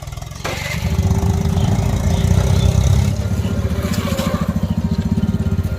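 TVS Apache motorcycle's single-cylinder engine starting and then idling, with a steady, rapid exhaust beat.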